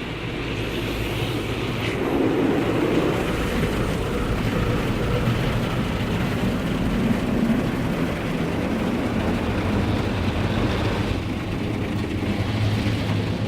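Automatic car wash machinery working over the car, heard from inside the cabin: a steady mechanical noise with a low hum underneath.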